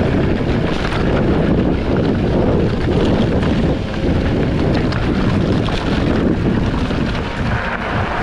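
Loud wind rushing over the microphone of a mountain biker riding fast down a trail, steady and buffeting.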